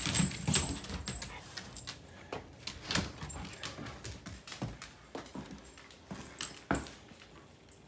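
Dogs moving about, with irregular light clicks and taps, louder in the first few seconds and fainter after; a brief metallic jingle at the start.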